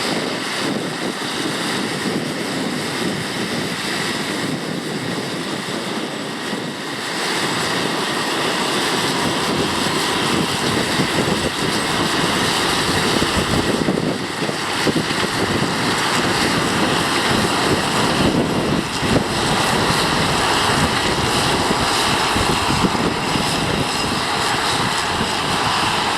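Tractor engine running steadily under load in field work, a constant drone that grows louder about seven seconds in.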